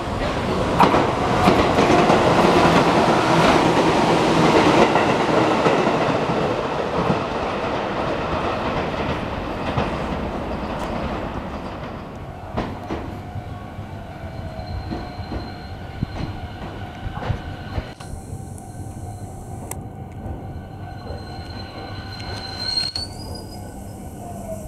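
A Tobu 350 series electric train passing through the station without stopping, a loud rumble of wheels on rails that fades away over about ten seconds. Then a Tobu 50000 series train pulls in, its inverter motor drive whining in steady tones that shift in pitch near the end as it brakes.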